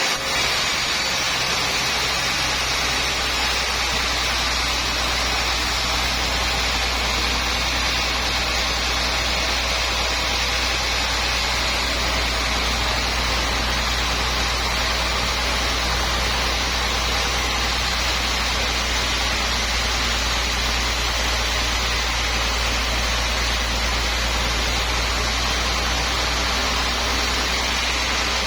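Sawmill machinery running: a steady mechanical drone with a low hum under an even hiss, unchanging throughout.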